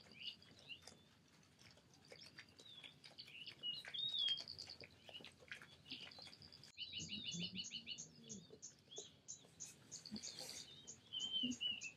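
Birds singing and calling in a busy dawn chorus, with a fast, evenly repeated series of high notes, about four a second, running through the second half. Faint clicks and soft splashes of lions' paws walking through sodden grass lie underneath.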